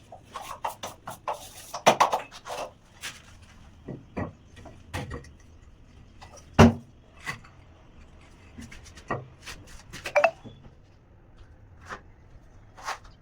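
Irregular knocks and clicks of tiling work in a small room, tools and tiles being handled and tapped, with the sharpest knock about six and a half seconds in.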